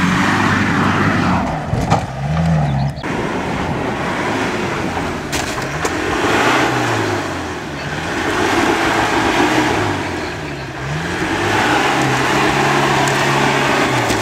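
Off-road 4x4 trial vehicle's engine revving up and down again and again, the revs rising and falling every second or two as it works through a section, with a few knocks and clatters early on.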